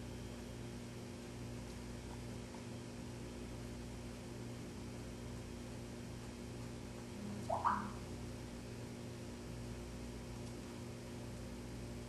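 Steady low electrical hum, with one brief rising squeak about seven and a half seconds in.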